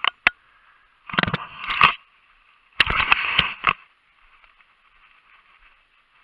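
Rustling and scraping as a bowhunter moves through long grass with a compound bow: a couple of sharp clicks, then two loud bursts of about a second each.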